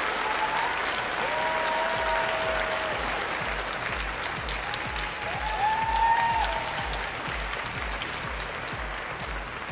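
Audience applauding, with music with a steady low beat coming in about two seconds in.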